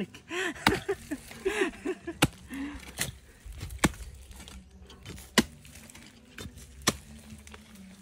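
A grub hoe and a steel digging bar striking dry earth. About six sharp blows fall irregularly, roughly a second apart.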